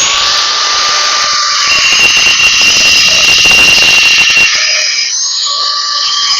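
A power tool running steadily at speed, with a loud hiss and a high, steady whine.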